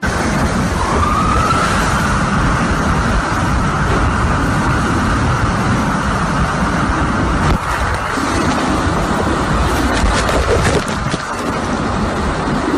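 Strong storm wind blowing hard against the microphone, with a high whistle that rises about a second in and then holds, and a few sharp knocks later on.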